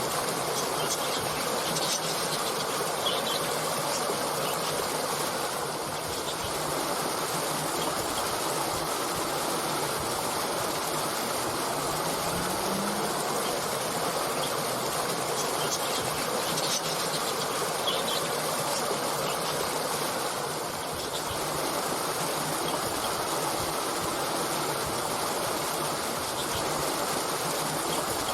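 A stream flowing steadily: an even rush of running water.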